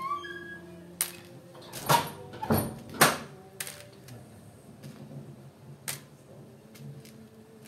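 A few sharp clicks and knocks of small hard parts being handled and set down, the loudest about two to three seconds in, followed by fainter scattered ticks.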